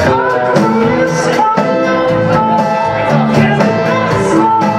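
Indie rock band playing live. In a sparser passage the bass and drums mostly drop out, leaving held instrument notes.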